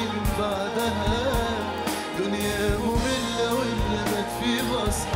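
A male singer sings a solo line into a microphone over a live band playing with a steady drum beat.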